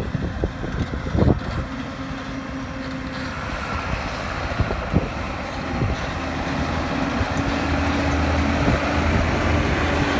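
John Deere tractor engine running as it pulls a large multi-axle silage trailer past at close range, with tyre and trailer noise, getting louder as it approaches. A couple of short knocks about a second in and around halfway.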